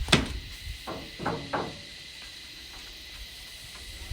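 A door latch clicks and the door is opened with a few short knocks and rattles, then a steady static-like hiss of cicadas carries on.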